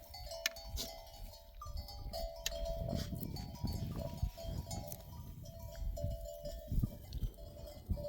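Bells hung on a flock of sheep ringing and clinking as the animals move, several steady tones at a few fixed pitches overlapping without pause, with scattered sharp clicks.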